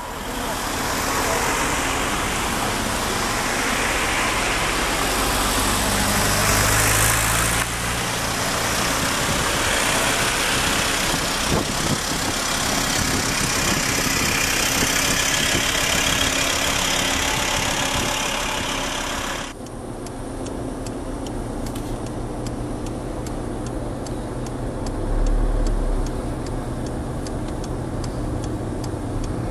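Car engines running close by with road noise. About two-thirds of the way through the noise drops sharply, leaving a quieter engine hum with a faint, regular ticking.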